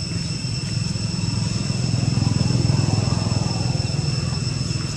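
Low engine rumble of a motor vehicle, swelling about two seconds in and easing off again, with a steady high-pitched whine throughout.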